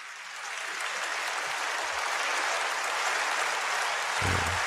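Congregation applauding, the clapping building over the first second and then holding steady.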